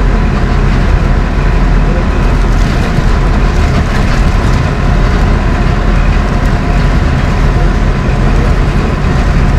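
Interior noise of a LAZ-42021 bus cruising on the highway: the engine and tyre and road noise heard from inside the cabin as a loud, steady drone with no changes.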